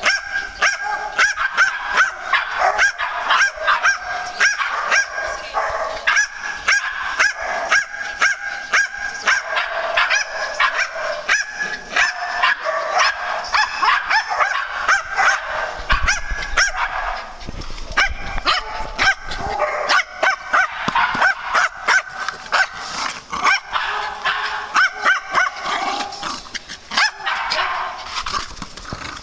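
Several small dogs barking and yapping in rapid, overlapping barks, several a second, while they play.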